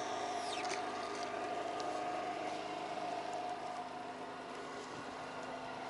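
Boat engine running steadily as a constant hum. About half a second in there is a short, falling swish as a fishing rod is cast.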